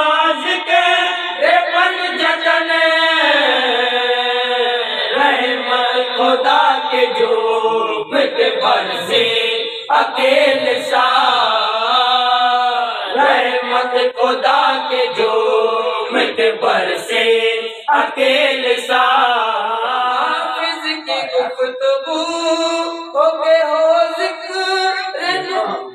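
Men's voices chanting a devotional milad recitation in long, drawn-out sung lines.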